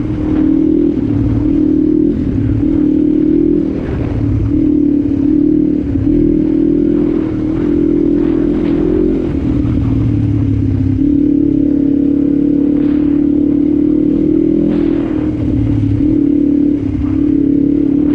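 2006 Kawasaki KLE 500's parallel-twin engine running under way at moderate speed, the throttle opening and easing every second or so.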